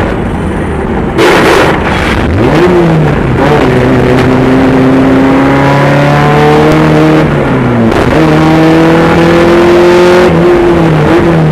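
Honda K24 inline-four engine of an offroad-racing Jeep Cherokee under hard acceleration: its pitch climbs steadily, drops sharply about seven seconds in, climbs again, and drops once more near the end, as at gear changes. A loud rushing burst comes about a second in.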